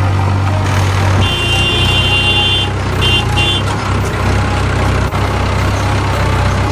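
Tractor engine sound running steadily with a low drone, not the plastic toy in view. About a second in a high-pitched horn beeps once for over a second, then twice briefly.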